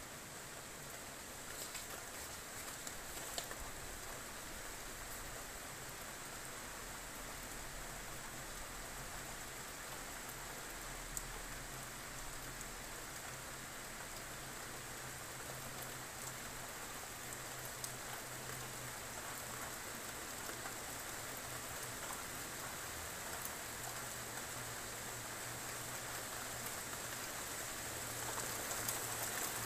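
Steady rain falling on a flat roof, with a few sharper drop ticks now and then; it grows a little louder near the end.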